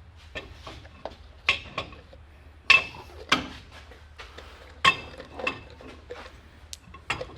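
Metal parts and tools being handled, clinking and clanking: a string of sharp metallic knocks, several with a brief ring, the loudest a little under 3 seconds in.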